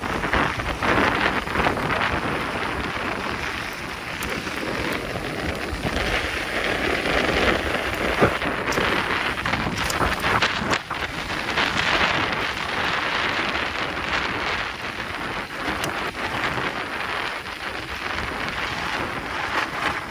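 Mountain bike riding a dirt trail: wind rushing over the microphone along with tyre noise, and frequent rattles and knocks from the bike over rough ground.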